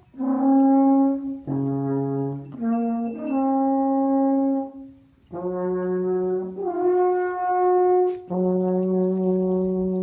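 Alphorn playing a slow melody of long held notes, each note sustained for about one to one and a half seconds, with short breaks between them.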